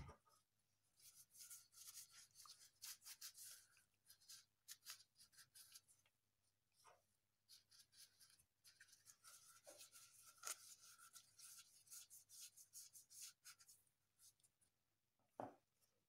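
Faint, irregular rubbing strokes of hands spreading oil over the pot used as a mould for a concrete planter, with light squeaks now and then.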